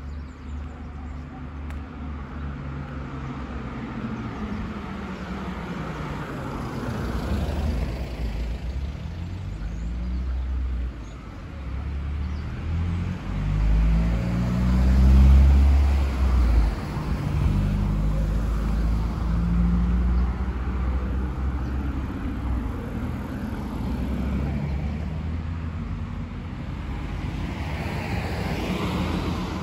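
Road traffic: cars driving past with engine hum and tyre noise, one passing loudest about halfway through.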